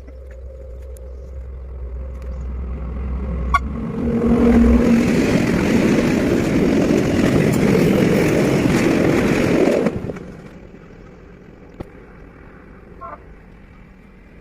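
A train approaching and passing at speed: the noise builds for about four seconds over a low steady drone, then a loud, even rush that cuts off suddenly about ten seconds in.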